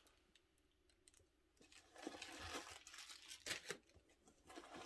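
Packaging wrap on a new leather handbag crinkling and rustling as it is handled and pulled off, starting about a second and a half in, with a few sharper crackles.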